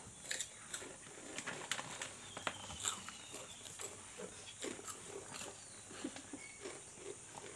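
Two children eating crunchy Kurkure corn snacks straight off a tabletop with their mouths. They make faint, irregular crunching, lip and breathing noises with many small clicks.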